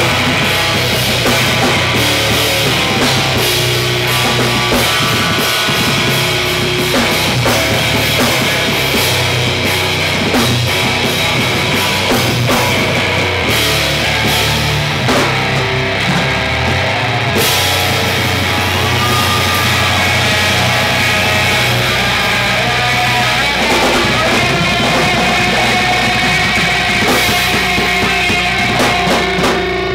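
Live hardcore band playing loud: distorted electric guitar over a drum kit, with the drumming thinning out and the guitar ringing on in the last few seconds.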